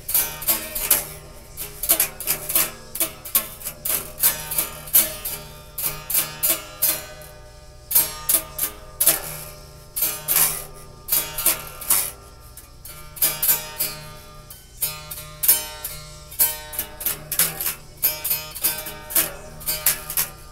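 Acoustic guitar played by hand, single notes and chords plucked with sharp attacks in an uneven rhythm, each note ringing briefly.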